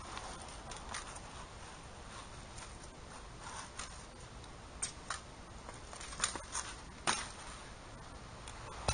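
Irregular sharp clicks and knocks from a BMX bike ridden on a concrete ramp, over a steady faint hiss, louder in the second half as the bike comes closer.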